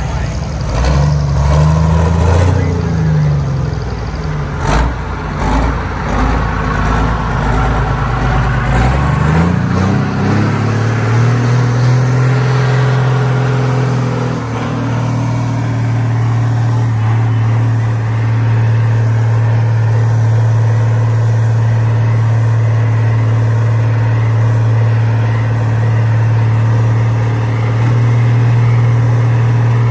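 John Deere pro stock pulling tractor's turbocharged diesel engine, revved up and down in short bursts. About ten seconds in it climbs in pitch and then holds at a steady rev.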